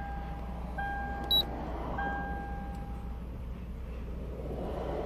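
Electronic tones inside a vehicle cab with the ignition switched on: a steady mid-pitched tone that sounds in stretches, stopping about a second and a half in and coming back for about a second, and one short high beep about a second in, over a low steady hum.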